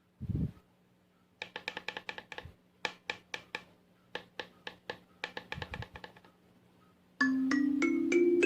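LingTing LT-K17Y-EQ kalimba with a low thump just after the start, then tines plucked in a quick melody, quiet with short-decaying notes. Near the end the notes turn much louder and ring on in long overlapping tones, typical of the kalimba playing through a Marshall amplifier.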